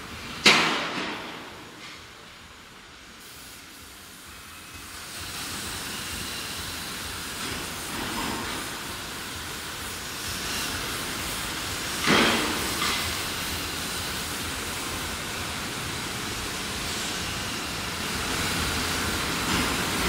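Factory workshop background noise: a steady hiss that builds up a few seconds in, broken by two sharp bangs with a ringing tail, one about half a second in and a louder-lasting one about twelve seconds in.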